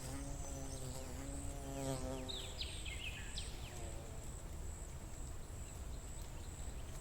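A bee buzzing close by, its drone wavering in pitch before it stops about two and a half seconds in. A few quick, high, falling bird chirps follow around three seconds in, over a steady thin high-pitched whine.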